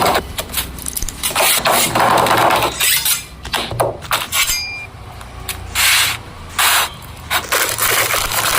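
Food-preparation noises: a string of sharp knocks and clinks mixed with short scraping bursts.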